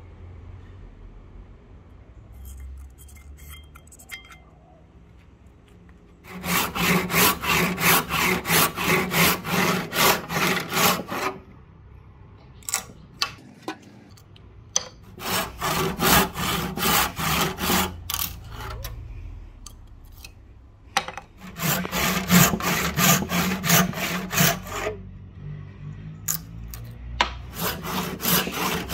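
Hand saw cutting into a rosewood axe-handle blank, in four runs of quick back-and-forth strokes with short pauses between them, starting about six seconds in.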